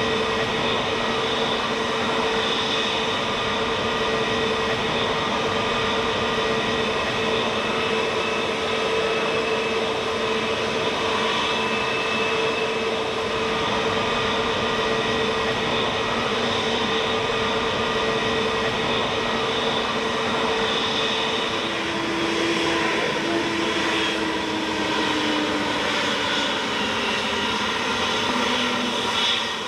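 Jet airliner engines running with a steady whine. About three-quarters through, the whine drops out and a lower tone slides down in pitch.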